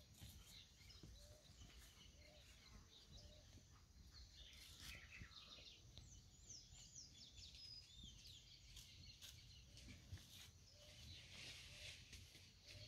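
Quiet pasture ambience: faint birds chirping, with a flurry of quick falling chirps about six seconds in, a faint low note repeated about once a second, and a steady low rumble underneath.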